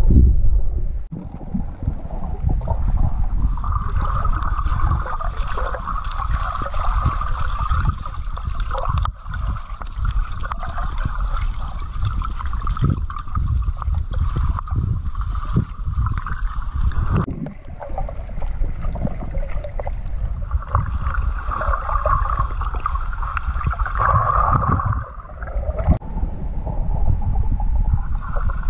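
Muffled underwater sound from a GoPro in its waterproof housing moved through lake water: a steady low rumble and water sloshing, with irregular dull thuds. A hazy mid-pitched rushing sound drops out a little past halfway and comes back for a few seconds near the end.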